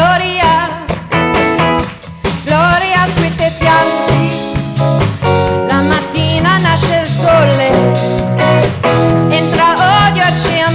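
Band music with guitar, steady bass and drums under a wavering sung melody with vibrato.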